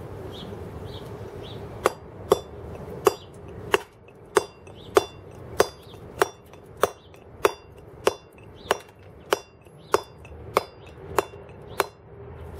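Round wooden carver's mallet driving a steel chisel into a block of stone: about seventeen sharp, even blows, a little under two a second, starting about two seconds in, each with a brief metallic ring from the chisel.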